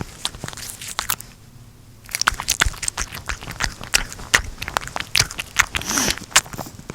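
A cat chewing dried bonito flakes (katsuobushi): quick, irregular crunching clicks, with a pause about a second in.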